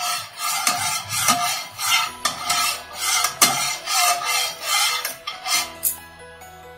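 Metal spatula scraping and stirring spiced rice in a non-stick pan, about two strokes a second, each with a light metallic ring; the stirring stops about a second before the end, leaving faint background music.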